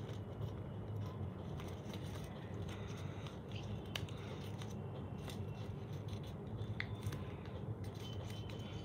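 Origami paper being folded and creased by hand, with light rustling and scattered sharp ticks and crackles of the paper, over a steady low hum.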